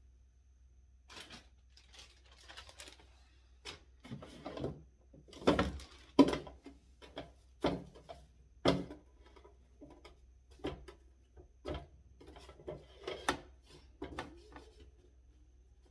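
Irregular knocks and clatters of food containers being set down and moved about on fridge shelves, loudest in a run of sharp knocks from about five to nine seconds in.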